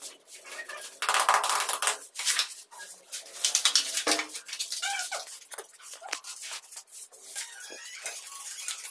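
Steel mason's trowel scraping and rasping on wet cement mortar and tile in quick, uneven strokes, with sharp clicks and taps, and a brief squeak about halfway.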